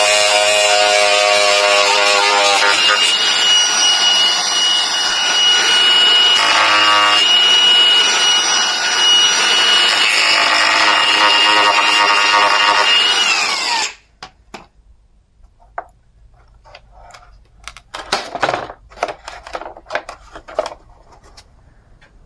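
Angle grinder cutting through the fibreglass structure of a car spoiler, running with a steady high whine. About fourteen seconds in it shuts off, its pitch falling as it stops. Light knocks and clatter of handling follow.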